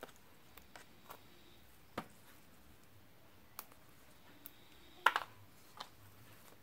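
Scattered small clicks and taps of plastic locking stitch markers being unclipped from crochet work and handled, the loudest a close pair about five seconds in.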